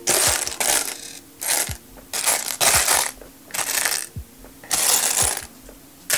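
Loose plastic LEGO tiles clattering and clicking against each other and against a plastic sorting tray as a hand rakes and picks through the pile, in a series of short bursts.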